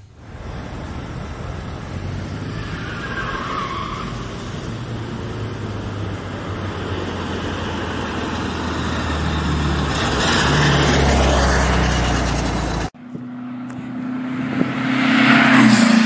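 Air-cooled Volkswagen Beetle engine running as the car drives, growing louder about three-quarters of the way through. It cuts off abruptly, and another engine sound with a steady low tone swells near the end.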